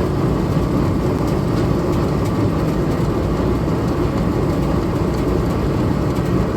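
Gasoline engine running steadily, driving the antique Champion leather sewing machine through its line shaft.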